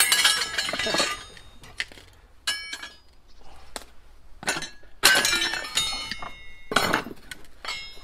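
Wooden clogs stamping on a pile of cut-up bicycle frame tubes, fork and steel rods on concrete, the scrap metal clanking and ringing at each stamp. The hardest hits come at the start and about five seconds in, with lighter knocks between.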